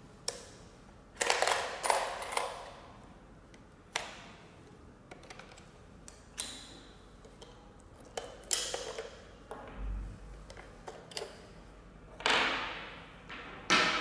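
Hard plastic clicks, knocks and short scrapes as a face-shaped coin bank's plastic casing is handled on a wooden table and its battery cover is worked open. The sounds come as separate clicks and short clusters every second or two, the loudest near the start and near the end.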